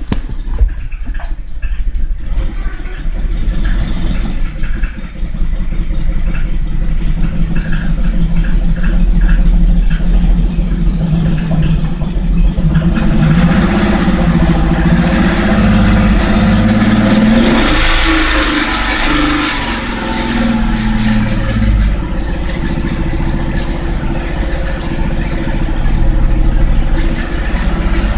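Ford Fusion 3.0 Duratec V6, newly swapped into a Mazda6, running roughly on its first start, heard from inside the cabin. Its revs waver up and down in the middle: the owner guesses the computer has to relearn after sitting dead for months.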